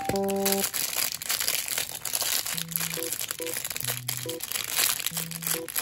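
Clear plastic packaging crinkling as bagged personal alarm keychains are handled, with soft background music.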